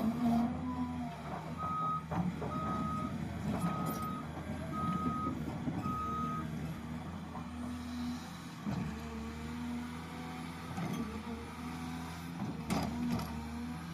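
A heavy construction machine's engine running steadily under work. Its reversing alarm beeps five times, about one beep a second, from about two to six seconds in, with occasional clanks.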